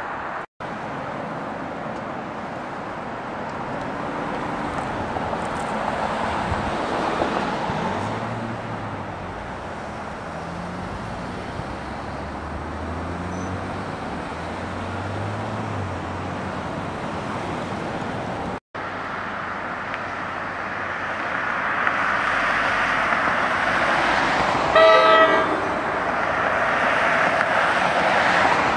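Norfolk Southern diesel freight locomotives running as they approach, their engine note rising and falling. After a cut, an approaching train's rumble grows louder, and about 25 seconds in it sounds one short horn blast, the loudest sound here.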